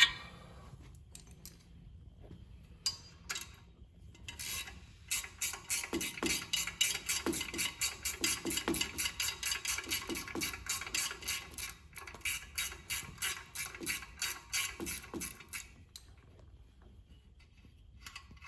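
Hand ratchet wrench clicking as a bolt is turned. A few single clicks come first, then a run of rapid, even clicks lasting about ten seconds.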